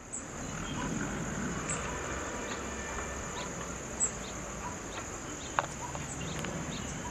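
Steady high insect drone with scattered short bird chirps, over a faint low rumble from a pair of distant ALCO WDM2 diesel locomotives approaching.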